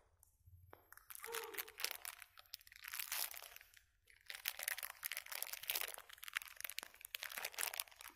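Irregular crunching and crackling noise in three stretches, with brief pauses about one second, two and a half seconds and four seconds in.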